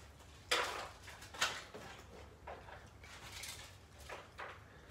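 Dishes and a utensil clattering and scraping on a kitchen counter as cat food is dished into bowls: two sharp scrapes about half a second and a second and a half in, then several softer clinks and scrapes.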